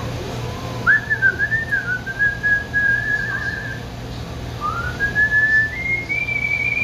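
A man whistling a wavering tune in two long phrases, the second starting about halfway through and climbing higher, over the steady low hum of a kitchen exhaust hood.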